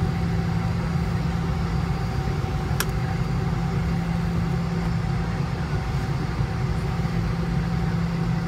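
Steady cabin noise inside a Boeing 717 taxiing with its Rolls-Royce BR715 engines at idle, with a low hum. There is one short click about three seconds in.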